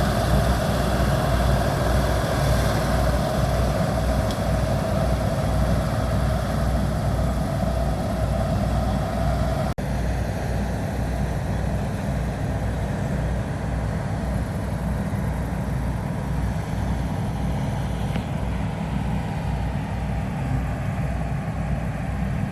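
Combine harvester running steadily while cutting wheat, a continuous low engine rumble with a mechanical hum over it. About ten seconds in the sound drops out for an instant, and afterwards the higher hum is quieter.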